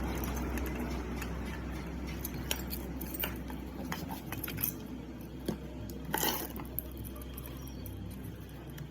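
Electric grinder running steadily with a rough, snoring-like rattle under a low hum, easing slightly in loudness. A few sharp metallic clinks come through, the loudest about six seconds in.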